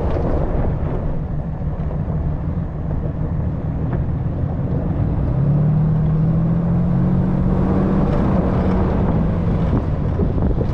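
Dodge Ram 3500 pickup driving over a dirt track: a steady low rumble of the truck and wind buffeting the hood-mounted microphone. About halfway through, the engine note comes up clearly for a few seconds, steady and rising slightly.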